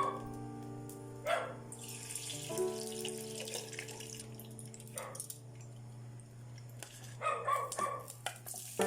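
Soft background music with a dog barking several times: once about a second in, once midway, and in a quick run near the end. A hiss of running water comes in briefly early on.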